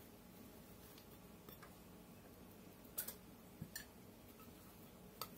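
A few small sharp clicks and taps over near-silent room tone: metal fidget spinners and their round tin cases being handled. The loudest click comes about three seconds in, with another shortly after and one near the end.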